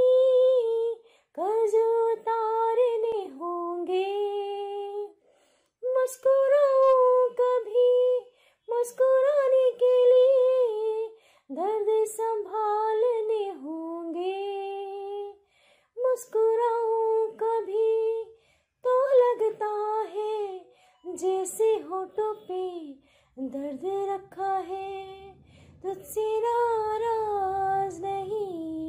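A woman singing solo without accompaniment: a slow melody sung in phrases of a few seconds, with held notes and short pauses for breath between them.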